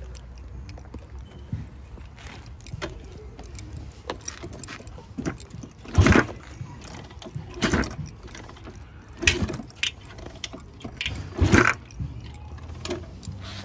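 Pit bike's kick-starter kicked four times, turning the engine over without it firing, to spread the fresh oil. Each kick is a short clattering stroke, with lighter rattles between.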